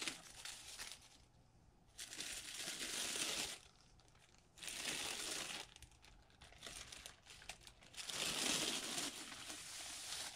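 Thin plastic bags crinkling and rustling in four bursts as they are pulled and peeled off a wrapped skull by hand; the last burst, near the end, is the longest and loudest.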